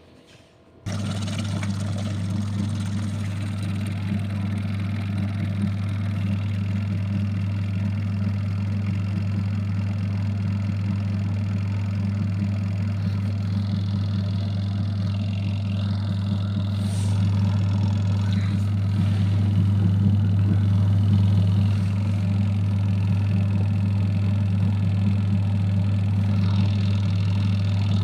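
Mini washing machine's electric motor starting up suddenly about a second in, then running with a steady low hum, a little louder for a few seconds past the middle.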